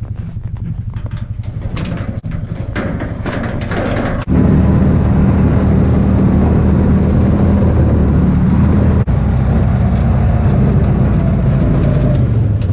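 Engine running steadily, stepping up abruptly to a louder, fuller run about four seconds in and holding there.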